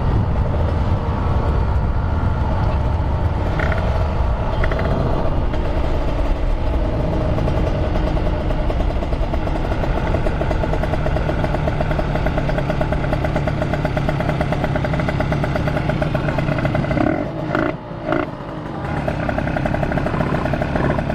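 Two-stroke Kawasaki Ninja 150RR motorcycle engine running on the move, its pitch rising and falling with the throttle. The sound drops off briefly twice about 17 seconds in, then picks up again.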